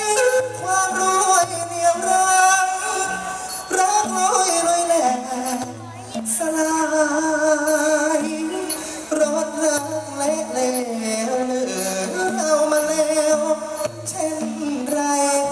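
Thai likay singing: a performer's voice, amplified through a handheld microphone, sings a held, bending melodic line over instrumental accompaniment with occasional low thuds.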